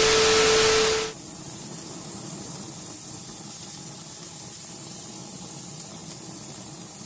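For about a second a loud burst of TV static with a steady test tone, matching the colour-bar test pattern, then cut off abruptly. After that comes a quieter, steady sizzling hiss of meat grilling over open flames.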